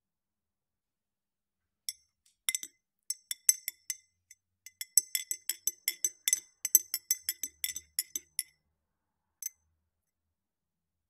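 Metal spoon stirring in a ribbed drinking glass, clinking against its sides. One clink comes about two seconds in, then quick runs of clinks for about six seconds, and a single last clink near the end.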